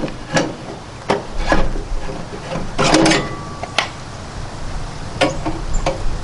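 Metal clinks and knocks of a Weber grill's rotisserie spit rod being handled and seated into its holder on the grill, a handful of separate strikes with a denser cluster about halfway through.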